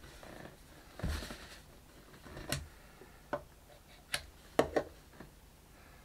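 Hands handling small 3D-printed plastic parts and a superglue bottle on a hard worktop: a brief rustle about a second in, then about six sharp plastic clicks and taps, the loudest near the end.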